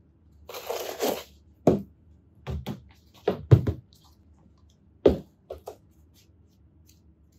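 A stretched canvas on a wooden stretcher frame being handled and tipped up on a concrete floor: a short scraping rustle, then about seven knocks and taps of the frame, the loudest past halfway.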